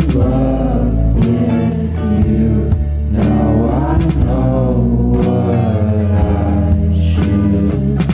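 Background music: a song with a singing voice over a steady beat and bass.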